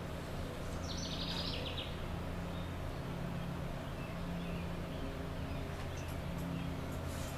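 Steady low outdoor background hum, with a bird's short, rapid high-pitched trill about a second in.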